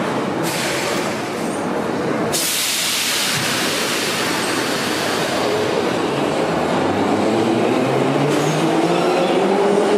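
Metrowagonmash Class 81 metro train setting off from a station. A hiss comes in suddenly about two seconds in, then the traction motors' whine rises steadily in pitch from about seven seconds in as the train picks up speed.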